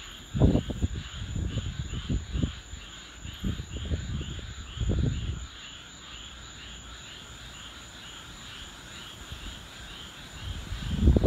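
A steady night chorus of calling frogs and insects: a call pulsing about twice a second over a thin, steady high trill. Low gusts of wind buffet the microphone in the first half, then stop about halfway through.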